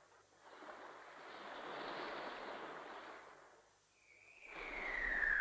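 Surf washing on a beach, swelling and fading. About four seconds in, a whistling tone starts high and slides steadily downward as it grows louder: the anime sound effect of the flying cloud Kintoun approaching.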